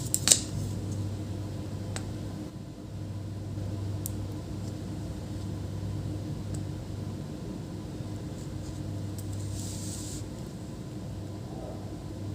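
Steady low background hum, with a few faint small clicks and a brief soft hiss about ten seconds in.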